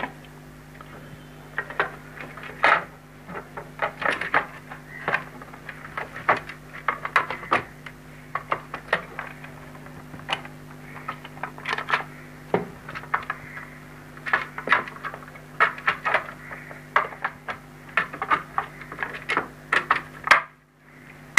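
Plastic housing of an extension-cord reel box being handled and fitted together, giving many irregular plastic clicks and knocks. A steady low hum runs underneath.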